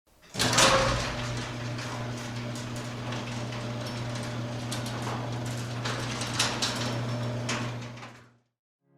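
Overhead garage door running on its opener: a steady motor hum with irregular rattling and clicking from the rollers in the tracks, fading out near the end.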